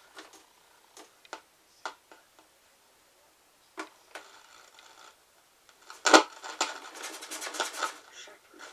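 Multiband radio switched to FM and being tuned at low volume: scattered clicks and crackles from its small speaker, then a loud burst about six seconds in and a couple of seconds of dense crackling static as the dial moves across the band.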